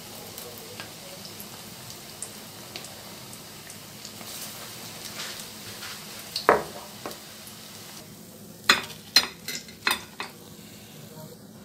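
Gram-flour-battered green chillies (mirchi bhajji) deep-frying in hot oil in a steel kadai, a steady sizzle with one knock about six and a half seconds in. The sizzle stops about two-thirds of the way through, and a wire frying strainer clinks sharply four or five times.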